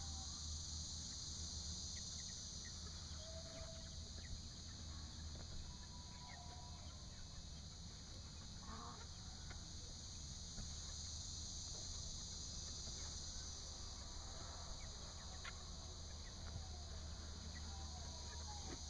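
Chickens clucking faintly now and then, over a steady high hiss.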